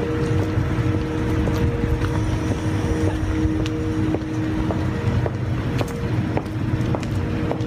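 Steady mechanical drone of outdoor building machinery such as ventilation and air-conditioning equipment, with two steady tones in the hum that fade about halfway through, and light footsteps on pavement.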